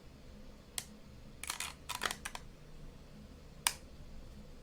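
Scattered small plastic button clicks: a single click, then two quick clusters of clicks, then one sharper click, as buttons on a handheld device are pressed.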